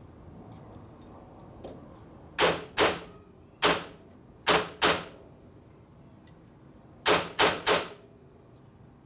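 Small hammer striking a bent steel transmission-gear retaining clip to beat it flat: eight sharp metallic blows in uneven groups of two, one, two and three.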